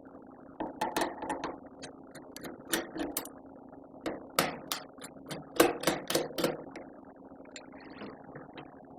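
Small Torx screwdriver working the tiny screws out of a netbook's metal plate: irregular sharp clicks and light metallic taps, in small clusters.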